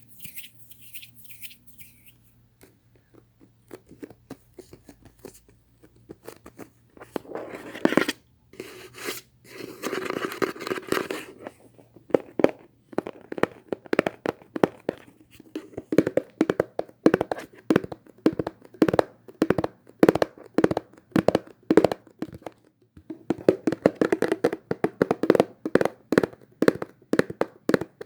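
Fingers tapping on objects for ASMR, in quick runs of several taps a second, with a couple of short scraping stretches about a third of the way in.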